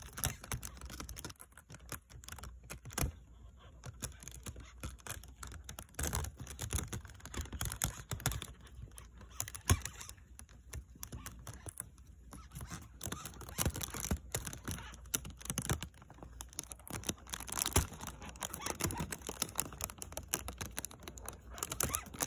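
Longhorn beetle stridulating inside a plastic bag: irregular runs of dry, scratchy clicks.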